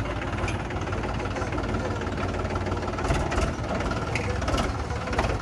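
Tractor diesel engine running steadily, with a few short knocks in the second half.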